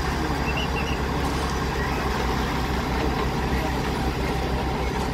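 Engine of a T-28 crawler track-laying machine running steadily, a constant low drone.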